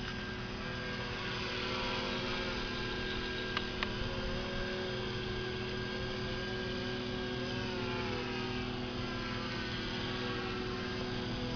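Radio-controlled V-tail model airplane flying overhead, its motor a steady hum whose pitch wavers up and down as the plane moves and turns. A small click comes about three and a half seconds in.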